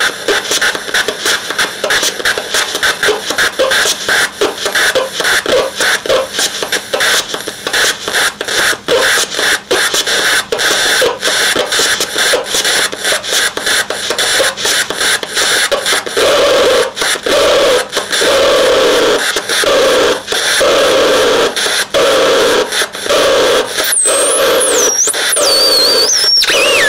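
Homemade electronic noise synthesizer putting out loud, harsh noise that stutters and chops rapidly. In the second half a throbbing tone repeats about once a second, and near the end whistling pitch glides swoop up and down.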